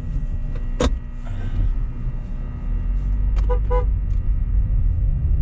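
Car running, a steady low rumble with a faint hum. There is a sharp click a little under a second in, and two short beeps in quick succession a little past three and a half seconds.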